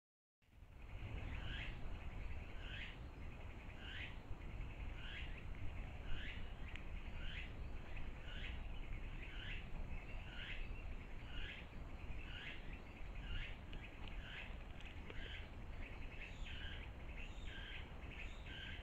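A bird calling a short note over and over, about once a second, coming quicker and doubled near the end, over a low steady rumble.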